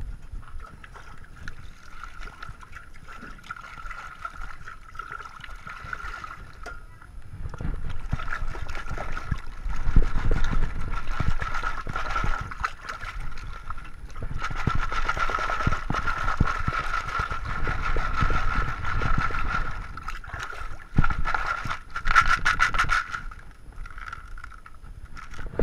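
Gravel-washing screen being dunked and shaken in a water trough: water sloshing, with gravel grinding and rattling on the wire mesh in long swells, then a short run of quick shakes near the end. A steady high tone sounds underneath throughout.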